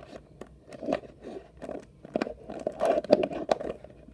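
3x3 Rubik's cube being twisted by hand: its plastic layers click and rasp in quick runs of turns, busiest a couple of seconds in.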